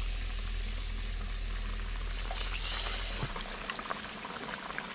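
Battered banana pieces sizzling and bubbling in a wok of hot deep-frying oil, with sharp crackles and pops that grow more frequent in the second half. A low hum underneath cuts off about three seconds in.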